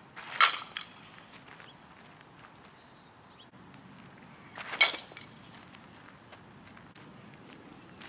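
Fastpitch softball bat striking pitched balls twice, about four seconds apart, each contact a sharp ringing ping.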